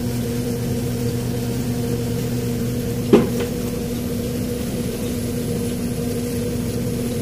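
Eurotek chiller's refrigeration system running with a steady electrical hum at the evaporator, a 'hard sound' that the technician takes as a sign the system is full of oil. One brief knock about three seconds in.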